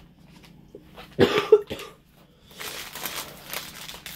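A person coughs, two quick bursts about a second in. Then a plastic bag crinkles as it is picked up and handled.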